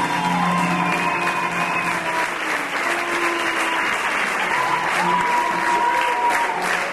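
Audience applauding steadily over music with held notes.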